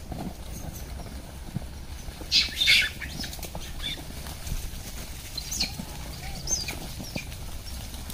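A troop of rhesus macaques crowding around for food: two short, sharp high-pitched calls about two and a half seconds in, and a few fainter squeaks a little later, over low rustling and shuffling.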